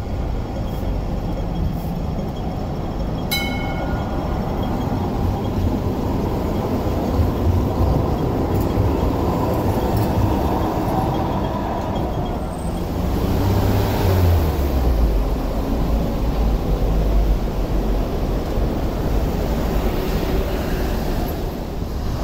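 Hong Kong Light Rail cars running on track: a steady rumble of wheels and running gear, with a brief ringing tone about three seconds in and a deeper rumble from about thirteen seconds.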